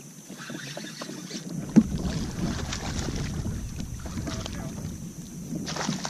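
Wind buffeting the microphone and water lapping against a small boat's hull, with scattered small clicks and knocks and one sharp knock about two seconds in.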